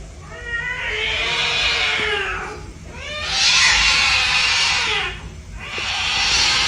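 Cat yowling in three long, drawn-out calls, one after another.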